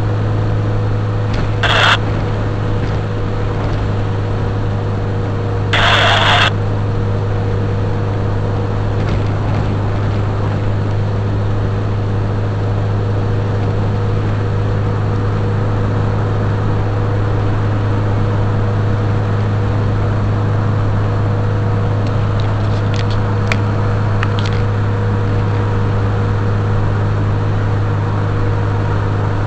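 Steady in-cabin drone of a car cruising at a constant speed: a strong low engine and road hum with a faint tone above it. Two short hissy bursts of noise come in the first seven seconds.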